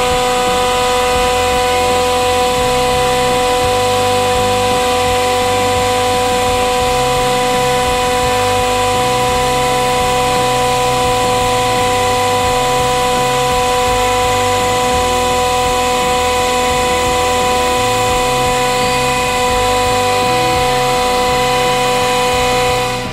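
Hydraulic press pump and motor running with a steady whine, held at one pitch, over a low uneven hum. It stops just before the end.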